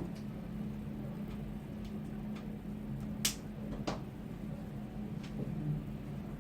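Scattered computer keyboard keystrokes: about half a dozen separate clicks, the loudest a little past three seconds in, over a steady low hum.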